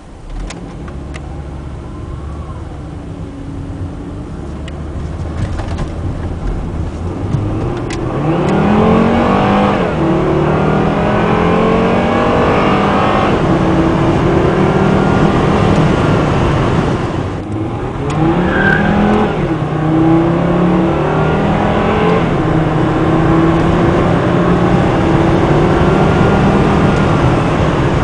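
Volvo S60 2.4T's 200 hp turbocharged inline-five engine accelerating hard through its automatic gearbox. The engine note builds over the first several seconds, then climbs in repeated rises and steps as it pulls, drops briefly about two-thirds of the way in, and climbs again.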